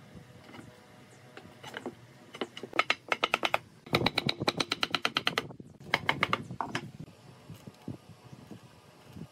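Wooden mallet tapping a pine rail onto the threaded rods of a slatted chair panel, in three quick runs of rapid wooden knocks at about ten a second, the middle run the longest.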